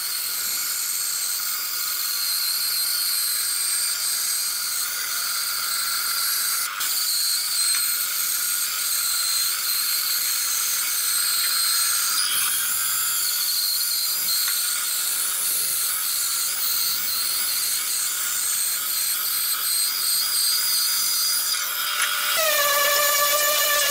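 Bench-top band saw running and ripping a wooden board along its fence: a steady high-pitched whine with the hiss of the blade cutting. Near the end a different steady, lower-pitched motor hum takes over.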